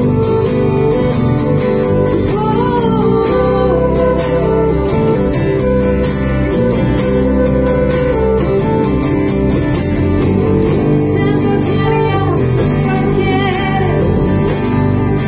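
Live acoustic worship music played by a small band: a steel-string acoustic guitar, an electric bass, a flute and drums, with a woman singing a slow, sustained melody.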